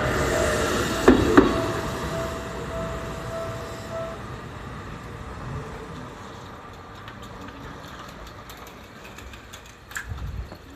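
Seibu Railway electric train rolling away past a level crossing, with two wheel clacks over a rail joint about a second in; the rolling sound fades steadily over the next several seconds. A steady tone stops about four seconds in, and a low thump comes near the end.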